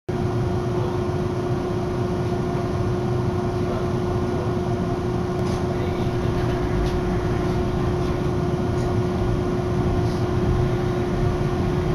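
Cabin noise inside a Hankai Line streetcar: a steady low rumble with a constant hum, and a few faint clicks about halfway through.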